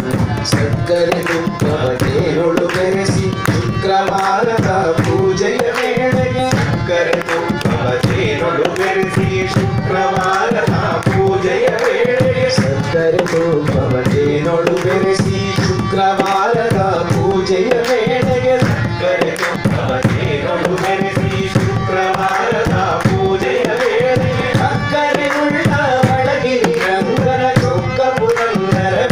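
Devotional bhajan singing: voices singing a melody together over steady hand-clapping and percussion.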